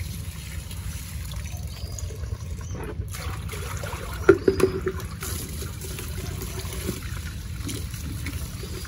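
Tap water running from a hose into a plastic bucket while leafy greens are swished in it by hand. About four seconds in there is a brief louder knock and splash as the bucket is tipped and emptied onto concrete.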